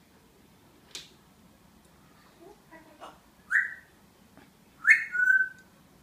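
African grey parrot giving two loud whistled calls, the first short and falling at about three and a half seconds, the second about five seconds in, ending in a held steady whistle. A light click about a second in and a few soft sounds before the calls.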